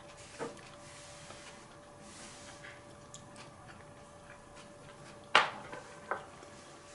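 Tableware clinks from eating utensils knocking on dishes: a light tap about half a second in, a loud sharp clack about five and a half seconds in, and a smaller one just after, over a faint steady hum.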